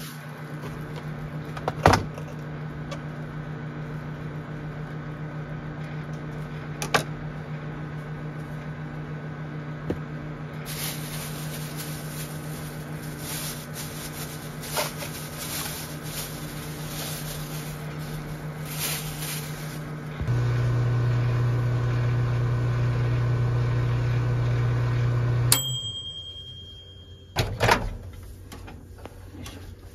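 Steady electrical hum of a kitchen appliance, with a couple of knocks and then plastic bag rustling. After about twenty seconds the hum turns louder for about five seconds, then cuts off with a short beep. A few handling knocks come near the end.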